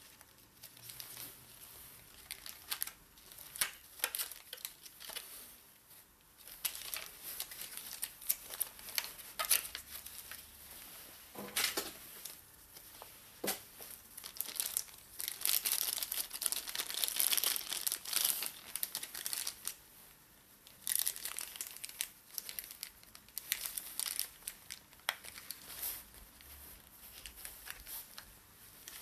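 Paper leaflets and packaging rustling and crinkling in a person's hands as a new phone's box contents are handled, with scattered sharp clicks and a denser stretch of rustling a little past the middle.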